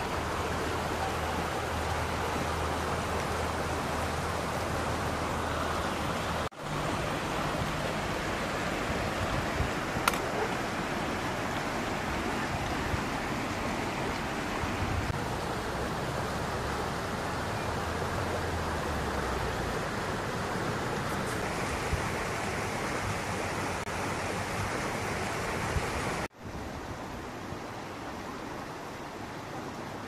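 Shallow river running over stones: a steady rush of flowing water. It breaks off for an instant twice and is quieter for the last few seconds.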